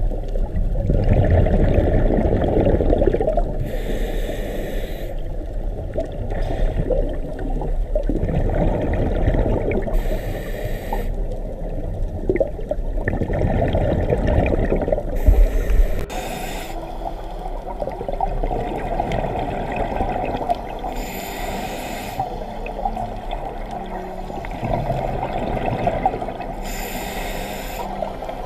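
Scuba diver breathing through a regulator underwater: five short hissing inhalations, one about every five to six seconds, each followed by a long bubbling exhalation. The bubbling is a little quieter after about sixteen seconds.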